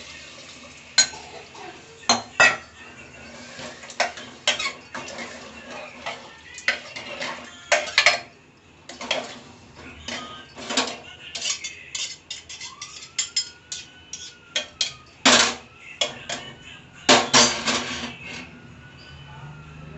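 Metal spoon stirring and knocking against a steel pressure cooker pot, with irregular clanks and clatters that stop shortly before the end.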